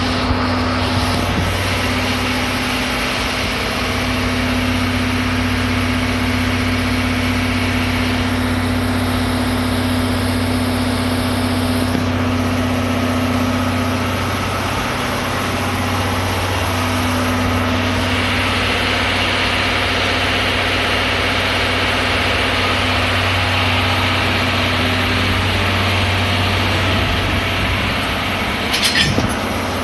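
JNR DE10 diesel locomotive's V12 diesel engine running steadily at low revs, a deep even hum as the locomotive creeps along at walking pace. A brief sharp clatter sounds near the end.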